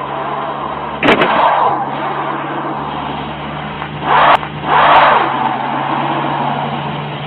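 Car engine accelerating hard in several sudden surges over a steady low hum, in muffled, low-quality recording.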